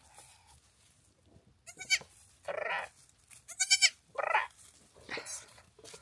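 Goats bleating: several short calls beginning about two seconds in, high-pitched kid bleats alternating with hoarser bleats.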